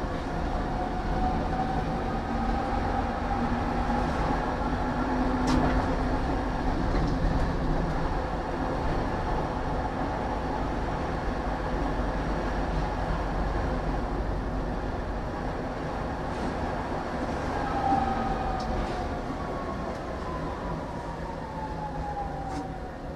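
Tram running on its rails with a steady rumble and an electric traction-motor whine. The whine rises in the first few seconds and falls away over the last five seconds as the tram slows. A few sharp clicks of the wheels over rail joints come about five seconds in and again later.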